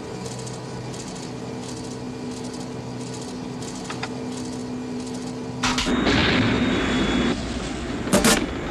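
Film sound effects: a steady aircraft-engine drone, then about six seconds in a loud rushing crash lasting about a second and a half, and two sharp cracks near the end.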